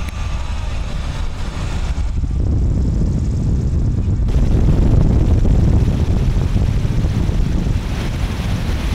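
Wind rushing in through the open gondola window of a Zeppelin NT airship in flight, a heavy low rumble mixed with the drone of its propeller engines. It grows louder about halfway through.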